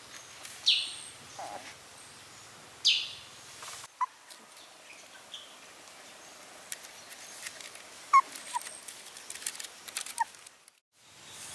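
Young puppies in a wicker basket squealing and whimpering: three sharp, high, falling cries in the first three seconds, then quieter short squeaks. Crackles and clicks of the wicker come from the pups moving about.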